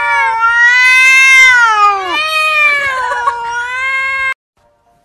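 Domestic cat yowling in long, drawn-out, wavering calls that bend up and down in pitch, cutting off suddenly about four seconds in.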